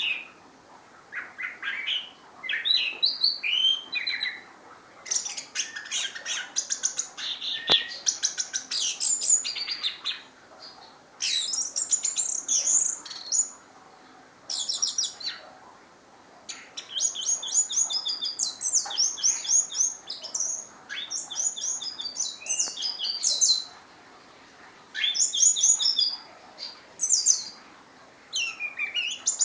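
Orange-headed thrush singing: bursts of quick, varied high-pitched phrases, each a few seconds long, separated by short pauses.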